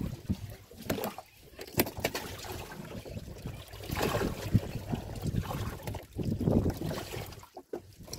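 Sea water sloshing and lapping against a small boat's hull, with a few sharp knocks about one and two seconds in.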